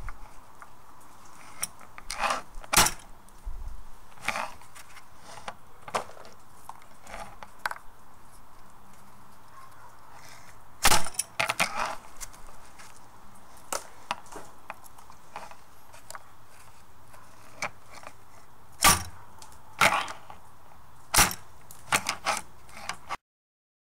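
A homemade rubber-band-powered pecan cracker at work: the steel Allen-wrench striker snaps forward and pecan shells crack against a hard wooden backstop. The sharp cracks come every few seconds, the loudest about halfway through and several close together near the end, with softer clicks and rustling of shells being handled in between.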